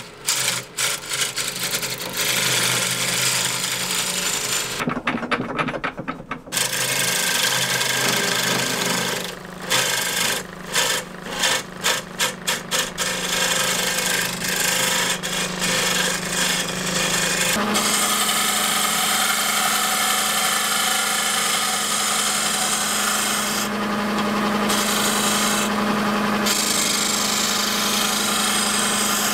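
Wood lathe turning a spindle while a hand-held turning chisel cuts into the spinning wood: a rough scraping hiss of shavings that breaks off each time the tool is lifted. About two-thirds of the way through the cutting becomes continuous, over a steady hum from the lathe.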